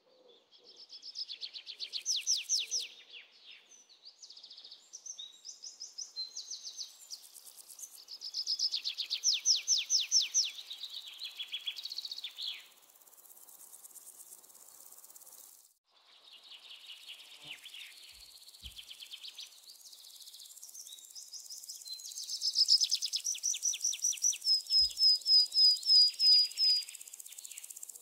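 High-pitched chirping and trilling of birds and insects, in rapid phrases of a second or two with pauses between them. Near the end comes a run of about eight quick separate chirps.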